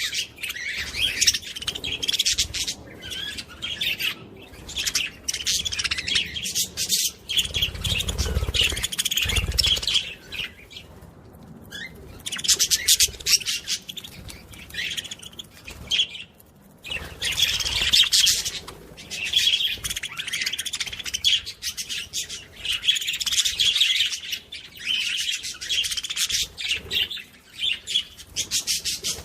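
Many small birds chirping and twittering at once in a dense, continuous chorus, with two short lulls partway through.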